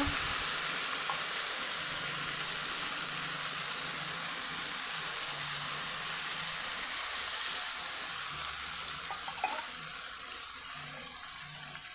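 Water poured from a tin can into a hot wok of frying canned sardines and spices, with a steady hissing sizzle that dies down near the end.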